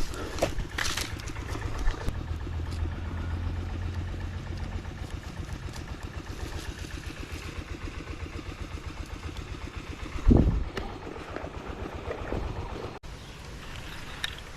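A small engine running steadily with a fast low pulse, with one loud thump about ten seconds in; the sound drops off suddenly near the end.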